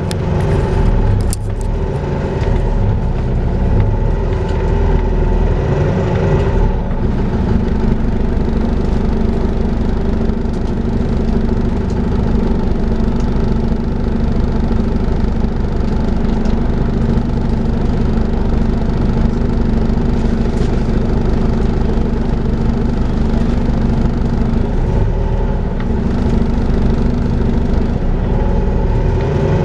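Volvo B5LH diesel-electric hybrid double-decker bus running with a steady hoover-like whine over a low engine rumble. The pitch of the whine shifts over the first few seconds, then holds steady.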